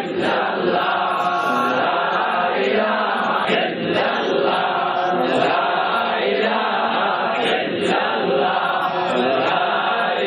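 A congregation chanting zikr in unison, one short devotional phrase repeated over and over with a brief break about every second and a half.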